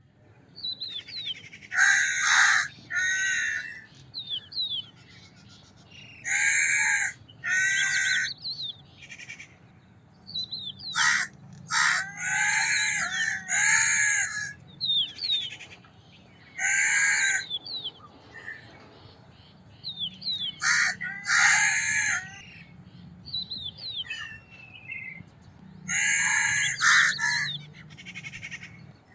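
Crow cawing: harsh caws in runs of two to four, with pauses of a few seconds between the runs.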